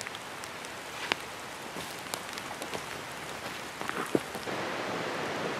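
Light rain falling in a forest: a steady hiss with scattered light ticks of drops, and a sharper click about a second in and another about four seconds in.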